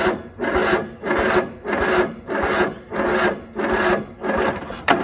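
Electric starter on a Craftsman LT2000 riding mower slowly cranking its badly damaged Briggs & Stratton engine, a rasping churn that surges about twice a second and never catches. The engine is not spinning over correctly, which the owner puts down to major internal damage, with the pistons hitting the cylinder walls.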